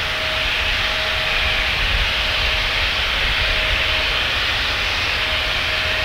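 Embraer E170 jet airliner's twin GE CF34-8E turbofan engines running at taxi power as the aircraft taxis: a steady hissing engine noise with a faint hum that comes and goes.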